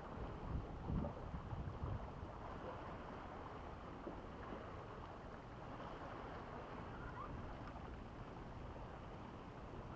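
Wind buffeting the microphone, with a few gusts in the first two seconds, then a steady low rumble.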